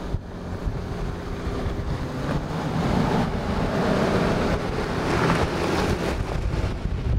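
Lexus GX550's twin-turbo V6 engine and tyres crunching on a dirt trail as it climbs past towing a trailer, growing louder from about three seconds in as it draws close. Wind buffets the microphone throughout.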